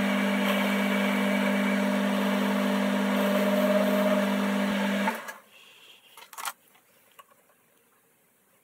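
Metalworking lathe running with a steady hum, then stopping abruptly about five seconds in, followed by a couple of faint clicks.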